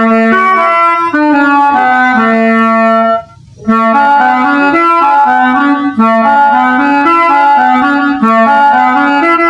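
Music: a melody of held notes in a reedy, wind-instrument-like tone, with a short break about three seconds in.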